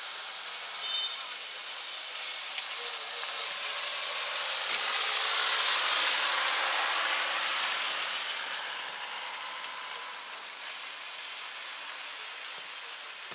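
Steady hiss of rain, with the noise of a passing vehicle swelling to a peak about six seconds in and then fading away.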